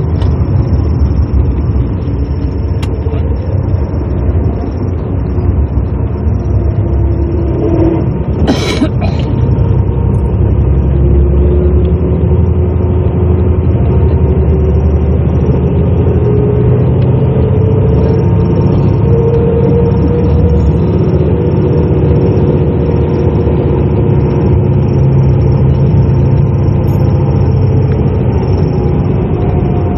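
Bus engine and road rumble heard from inside the moving bus, with a whine that slowly rises and falls in pitch as the bus changes speed. A short sharp clatter about nine seconds in.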